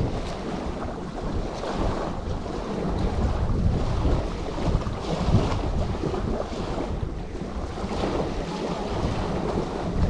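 Wind buffeting the microphone in a steady rumble, over small waves washing onto a pebbly shore.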